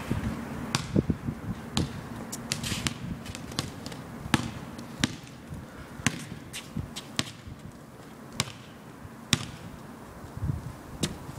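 A basketball bouncing on a paved outdoor court. Each bounce is a single sharp slap, about one a second at an uneven pace.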